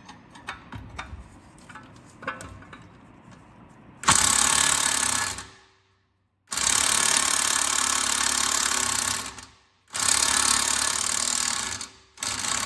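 Impact wrench hammering on a front strut-to-spindle bolt nut that was heated to free it. After a few seconds of faint tool-handling clicks it runs in three bursts, about a second and a half, three seconds and two seconds long with short pauses between, and starts a fourth near the end as the nut is worked loose.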